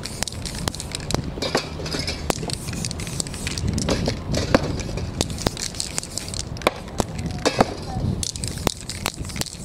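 Aerosol spray paint cans hissing in short bursts, with many sharp clicks and knocks from the cans being handled and set down.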